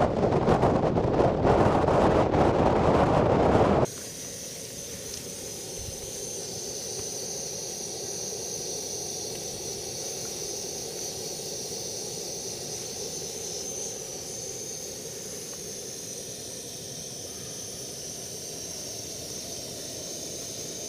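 Blizzard wind blasting across the microphone, loud and gusty, cutting off suddenly about four seconds in. A camping stove burner then hisses steadily, melting snow for cooking.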